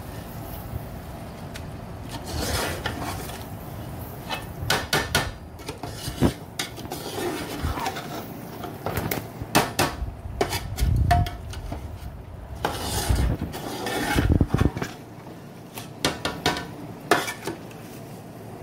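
Metal spoon scraping and clinking against an aluminium pot as fish pieces are turned through thick masala, in irregular clinks and scrapes with a couple of dull low knocks.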